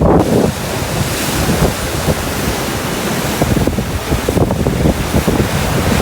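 Rough post-typhoon sea surging and crashing against a harbour breakwater, with strong wind buffeting the microphone; a louder surge comes right at the start.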